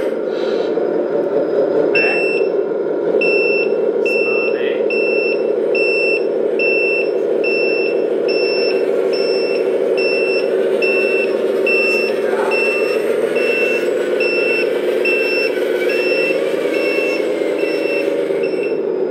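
Electronic sound module of a 1/14 RC dump truck playing a simulated diesel truck engine running at low speed through its small speaker, with a reversing beeper sounding short, evenly spaced beeps a little under two a second from about two seconds in until near the end: the truck is backing up.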